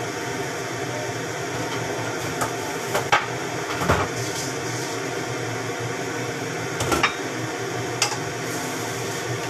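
Cookware clatter at the stove: a pot lid being handled and a wooden spatula knocking against a pot, a few sharp clinks about three to four seconds in and again near seven and eight seconds, over a steady background hum.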